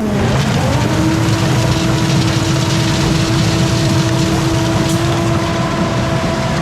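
Concrete truck engine running under load to drive the auger. Its pitch sags right at the start, recovers within about a second, then holds steady over a low rumble.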